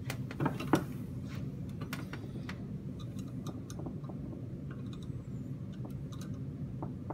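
Small clicks and knocks from a metal retort-stand clamp being handled and tightened around an electrode, the sharpest knock about three quarters of a second in, over a steady low hum.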